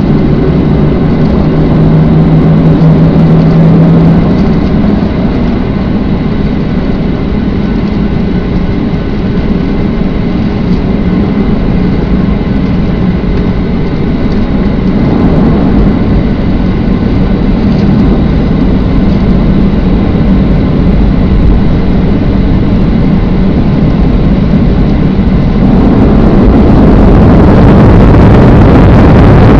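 Jet airliner cabin noise heard from a seat over the wing: a steady rumble of the engines and the rolling aircraft, with a low hum in the first few seconds. About 26 seconds in it grows louder and brighter as the engines spool up for the take-off.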